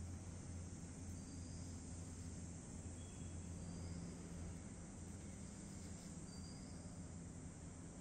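Faint ambience: a steady low hum under a soft hiss, with short high chirps about every two seconds.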